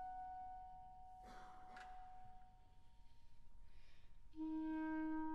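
Solo clarinet with orchestra: a held note fades away, and after a short breathy noise and a brief lull a new, lower clarinet note enters firmly about four seconds in and is held steady.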